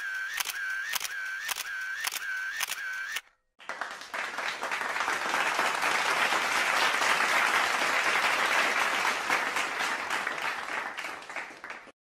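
Camera shutter clicking in quick repeated shots, about two a second, which stops about three seconds in. After a brief silence, an audience applauds, swelling and then fading out near the end.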